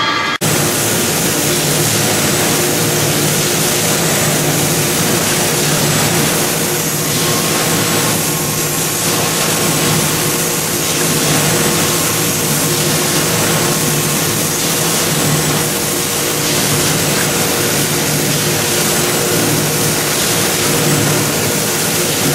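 Steady din of a plastic-jug production line running: conveyors and plant machinery, a constant hum under a dense hiss.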